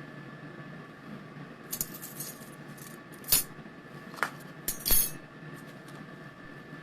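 Several sharp clicks and clinks of small hard objects being handled on a kitchen counter, the loudest two a little over a second apart and one with a brief ring, over the steady faint hum of a Pampered Chef air fryer running.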